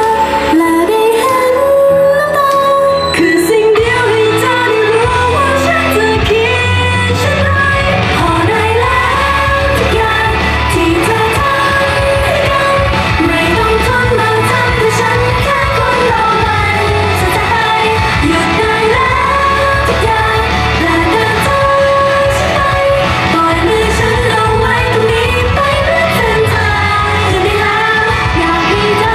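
Female idol group singing a Thai pop song into handheld microphones over a pop backing track; the bass and beat come in about four seconds in.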